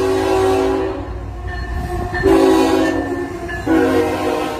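GE ET44AC diesel locomotive sounding its multi-tone air horn for the grade crossing as it passes close. One blast ends about a second in, another comes a little after two seconds, and a shorter one comes near the end, over the low running of the engine and train.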